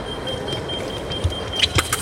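Sabre blades clashing, three or four sharp metallic clicks in quick succession about a second and a half in. Right after them the electronic scoring machine's high, steady tone sounds, signalling a touch.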